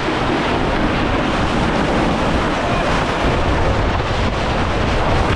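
Loud, steady wind buffeting the microphone and water rushing along the hull of a J/111 sailboat heeled far over in a broach under spinnaker.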